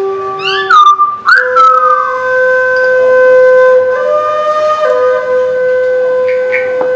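Whistle-like wind instrument tones, several pitches held steadily and shifting now and then, with a few quick rising bird-like chirps about a second in.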